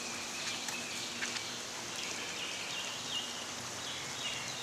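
A steady wash of rain and running water on a flooded street, with faint, high chirping calls several times in the second half.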